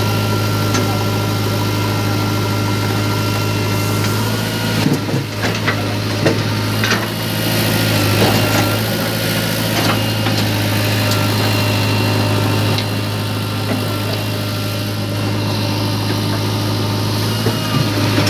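Diesel engine of a JCB 3DX backhoe loader running steadily while it digs soil and loads it into a tractor trolley. Scattered knocks of the bucket and clods come a few seconds in, with more knocks near the end as the load drops into the trolley.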